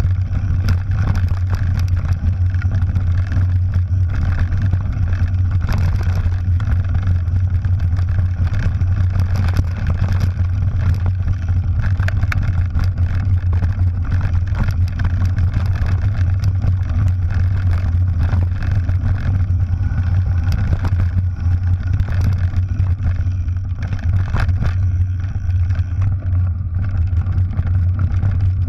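Steady low rumble of ride noise picked up by a bike-mounted action camera as a mountain bike descends a rough dirt and gravel trail, with scattered clicks and rattles from the trail and bike.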